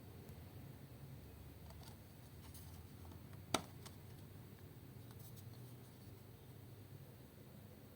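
Faint room tone with a few soft ticks, and one sharp click about three and a half seconds in.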